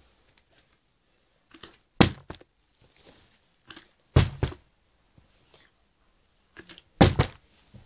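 A flipped bottle landing on carpet: three dull thuds about two to three seconds apart, with a few fainter knocks between them.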